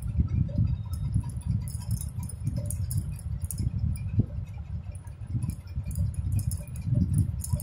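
Hands crocheting yarn with a metal crochet hook. There are quick, irregular light clicks and clinks over a low rubbing and bumping of handling noise.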